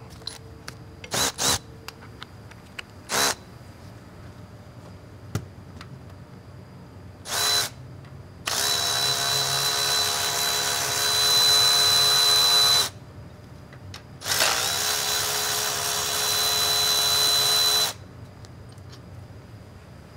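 Handheld power tool, drill-type driver, run in a few short blips and then two longer steady runs of about four seconds each at constant speed with a high whine, taking out the bolts of a transmission shifter linkage bracket.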